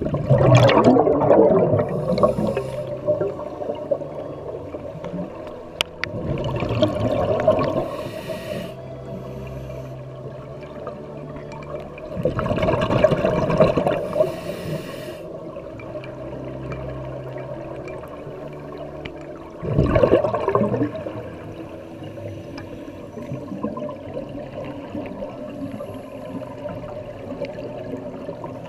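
Scuba diver breathing underwater through a regulator: four bursts of exhaled bubbles gurgling and rumbling, about six seconds apart.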